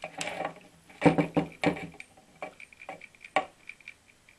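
Irregular clicks and knocks as a Salamander electric water pump is handled and turned over on a wooden workbench, about a dozen sharp knocks with the loudest about a second in. No steady motor hum: the pump is not running.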